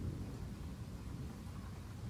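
Low, steady rumble of a distant thunderstorm from a storm-sound ambience track.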